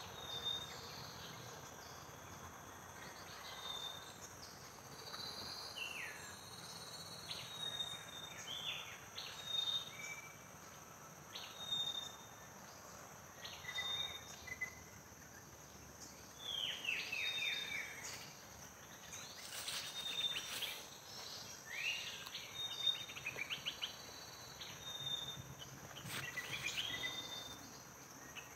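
Birds chirping in short, repeated notes and quick falling runs over a steady high-pitched drone of insects. The chirps come more thickly in the second half.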